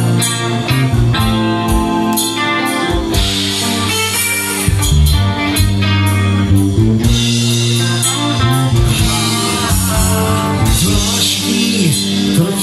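Live rock band playing with electric guitars, bass guitar and drums.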